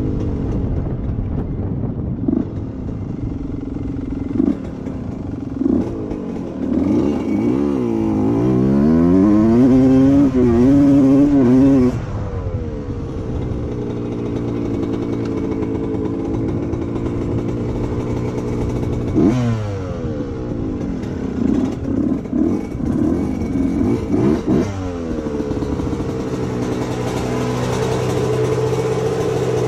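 1990 Suzuki RM125's single-cylinder two-stroke engine under throttle while being ridden. The revs climb steadily for several seconds before falling back abruptly, then hold steady, with further sudden drops and surges later.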